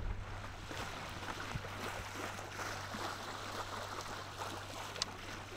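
Water lapping and trickling against a yacht's hull, over a steady low hum, with a few faint clicks.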